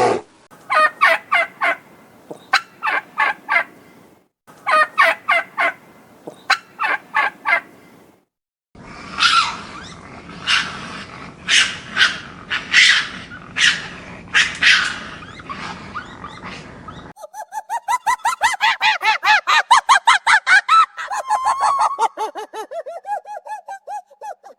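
Turkeys gobbling: several bursts of quick rattling calls, then a long rolling gobble that falls in pitch near the end.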